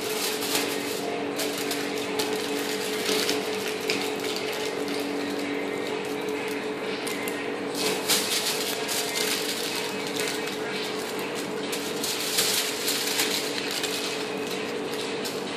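Aluminium foil crinkling and crackling in irregular handling as small pieces are torn and rolled around chicken lollipop bone ends, over a steady low hum.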